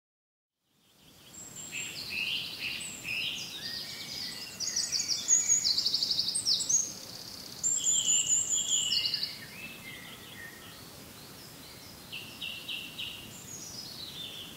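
Birds singing: quick repeated chirps and trills, loudest in the middle, over a faint steady background noise. It fades in about a second in.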